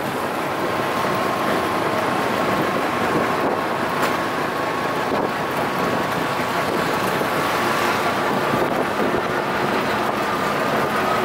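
Steady road traffic noise with a faint engine whine slowly rising in pitch.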